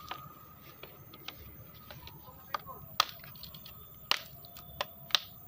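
A series of sharp clicks and snaps at irregular spacing, about seven of them, the loudest around three and five seconds in, over a faint steady high tone.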